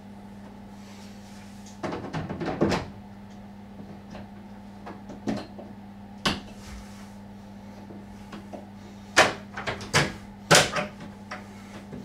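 Plastic clicks and knocks as a new filter housing is pushed into the bottom compartment of a Candy CSO H10A2TE condenser tumble dryer. A run of louder snaps near the end comes as the housing's latches and the hinged lower cover panel are closed.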